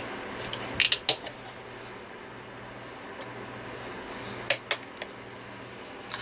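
Small plastic cordless-phone handset parts being handled: a couple of sharp clicks and taps about a second in, and another pair at about four and a half seconds, over a steady low hum.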